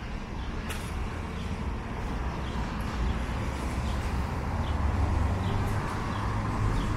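City street ambience: a low steady rumble of traffic that grows a little louder, with a few faint high chirps of a bird in the middle.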